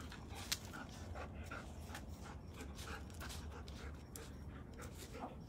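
A dog panting in short, repeated breaths, with one sharp click about half a second in.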